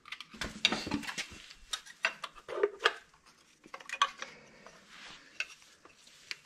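Steel pry tool clinking and scraping against the front crankshaft seal as it is levered out of its bore, a run of short irregular metal clicks and scrapes.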